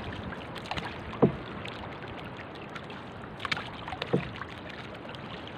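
Wooden paddle strokes on a small outrigger canoe: a steady wash of water, with two sharp knocks about a second in and about four seconds in.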